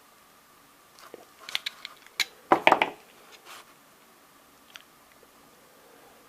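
Sharp metallic clicks and a brief burst of scraping and crackling as a 9-volt battery's metal casing and inner cells are pried apart. The scraping burst near the middle is the loudest.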